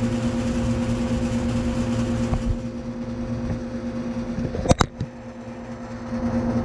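1985 York Champion IV "Tombstone" air conditioner running steadily: the Copeland CR reciprocating compressor's hum and the condenser fan. About four and a half seconds in, a sharp clatter cuts across it, and the hum sounds lower for a moment before coming back up.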